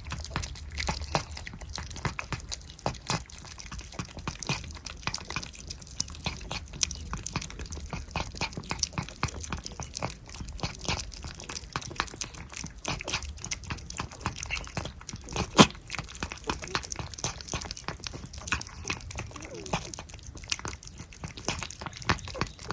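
Several cats licking and eating churu lickable paste treats: a dense, irregular run of wet licking clicks and smacks, with one louder click about fifteen seconds in.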